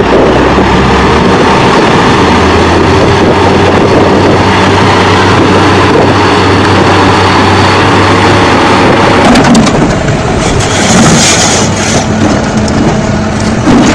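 Heavy earthmoving machinery engines running loud and steady, with a low hum. The sound changes character about ten seconds in, to a higher steady drone and more high-pitched noise.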